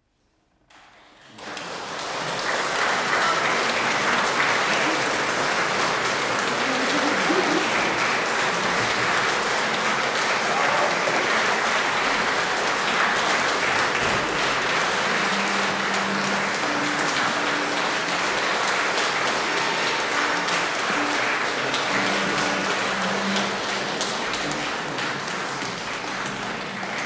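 Concert audience applauding, starting about a second in after near silence and carrying on as dense, steady clapping that eases slightly near the end.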